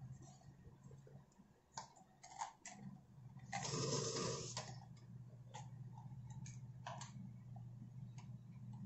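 Small clicks and handling noises as a tray of nursing supplies is set down and a thermometer and tissue are handled. A rustle lasting about a second comes near the middle, over a steady low hum.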